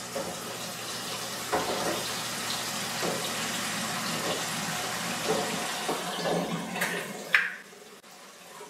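Kitchen faucet running hot water into a pan of eggs, shut off about seven and a half seconds in after two short knocks.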